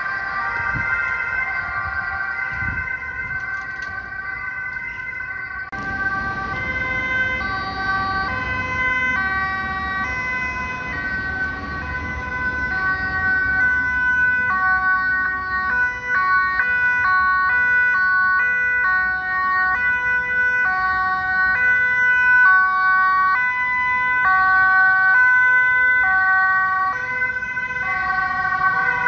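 Dutch ambulance two-tone sirens alternating between a high and a low note, more than one pattern sounding over the other. A rumble of road traffic runs underneath from a few seconds in.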